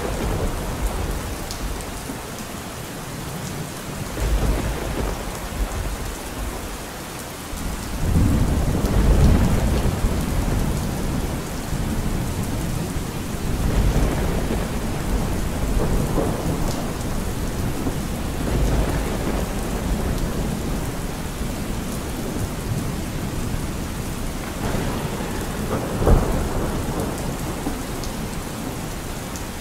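Steady rain falling through a thunderstorm, with rolling thunder. A long low rumble swells about a third of the way in and recurs several times, and a sharper thunderclap comes near the end.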